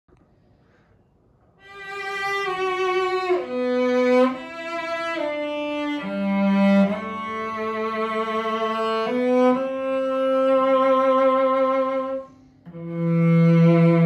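Old English cello in the Grand Amati pattern, bowed after a near-silent second and a half, playing sustained notes with vibrato. Some notes sound as double stops, two strings at once. There is a short break a little after twelve seconds.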